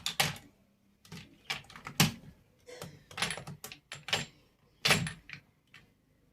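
Small cosmetic bottles and containers being handled and set down, a series of clicks and light knocks, loudest about two seconds in and again near five seconds.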